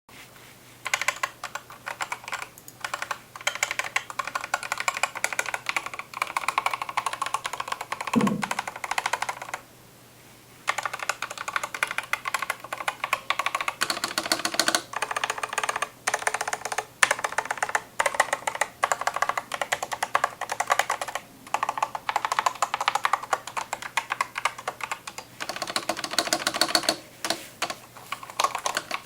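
Fast typing on a Corsair K100 mechanical gaming keyboard: dense runs of key clicks with short breaks, and a longer pause about ten seconds in. A brief low falling tone sounds about eight seconds in.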